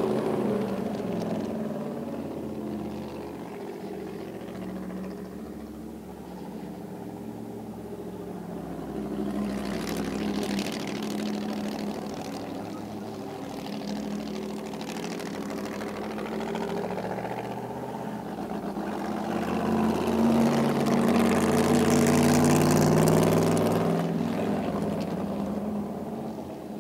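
Engines of 1950s sports racing cars lapping a course, their note rising and falling with the throttle. The sound grows louder as a car comes near about ten seconds in, and again most strongly from about twenty to twenty-four seconds, then fades away.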